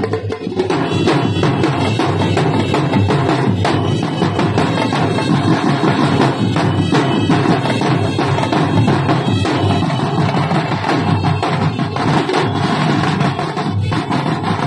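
A drumline of marching snare drums playing a busy rhythm together, dense strikes throughout with a brief let-up near the end.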